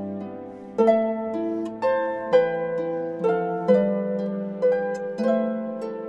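Background music: a slow melody of plucked, harp-like string notes, about two a second, each starting sharply and fading out.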